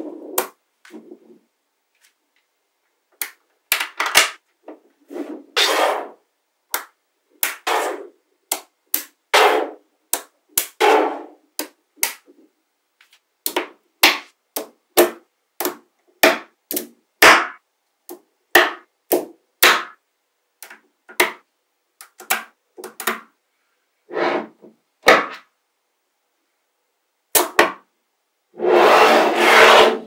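Small neodymium magnetic balls clicking and clattering as slabs of them are snapped together and set down: irregular sharp clicks and short rattles with brief pauses between, and a longer rattle near the end.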